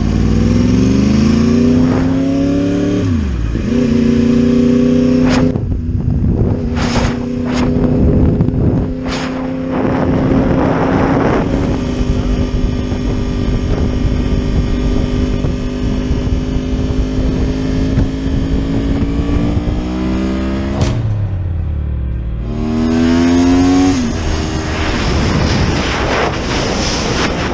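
Motorcycle engine accelerating hard through the gears, its pitch climbing and dropping back at each shift. It then holds a steady pitch at cruising speed, eases off about three-quarters of the way through, and revs up again near the end.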